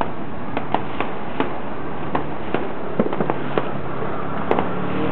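Fireworks going off: a string of sharp, irregularly spaced pops, about a dozen, over a steady hiss of background noise.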